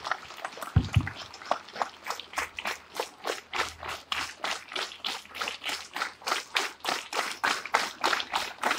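A crowd of students clapping together in a steady beat, about four claps a second. There are a couple of low thumps about a second in.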